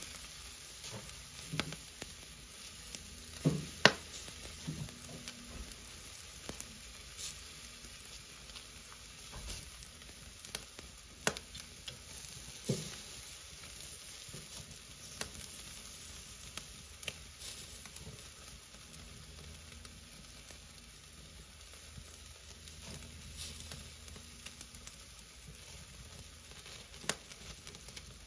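Chicken drumsticks sizzling over hot charcoal on a grill, with scattered sharp clicks and scrapes of a metal barbecue fork against the grate as the pieces are pushed together. The loudest click comes about four seconds in.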